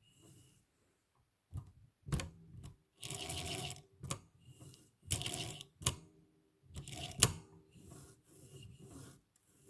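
Olympia SM7 manual typewriter mechanism being worked: a string of sharp mechanical clacks and short rattling runs, the loudest a sharp clack about seven seconds in.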